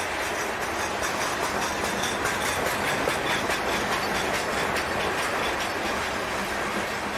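Freight train's covered hoppers and boxcars rolling past at close range: a steady rolling noise of steel wheels on the rails, broken by many quick clicks and rattles.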